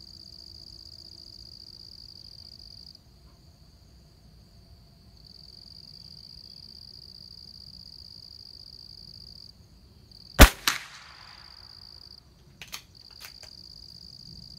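A single .22 LR rifle shot from a Christensen Arms Ranger, a sharp crack with a smaller crack a moment after, followed about two seconds later by two short sharp clicks. Insects chirr steadily in the background in long stretches that stop and start.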